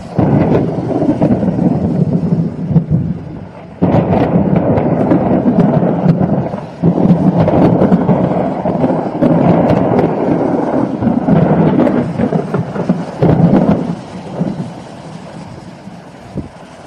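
Thunder: a sudden loud clap and rumble, then a second sudden clap about four seconds in that rolls on for about ten seconds before fading away.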